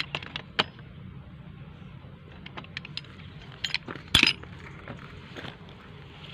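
Sharp clicks and clinks of a hand tool against plastic and metal pipe fittings as a water meter connection is worked by hand. They come singly and in small clusters, the loudest a little after four seconds in, over a steady low hum.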